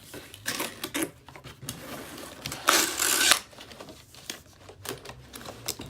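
Cardboard toy box and its packaging being handled as the contents are slid out: scattered light clicks and rustles, with one longer scraping rustle about three seconds in.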